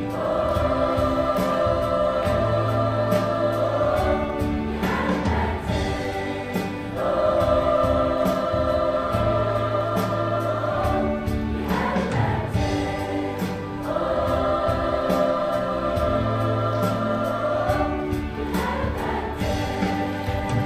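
High school choir singing long held chords with accompaniment, each chord sustained about four seconds before the next.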